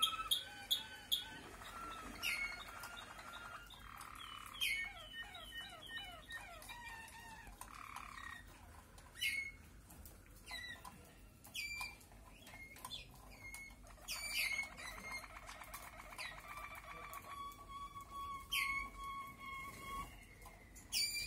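Malinois (Waterslager) canaries singing a continuous varied song: rolling trills, low buzzy bubbling passages, fast descending slurs and repeated sharp clicking notes.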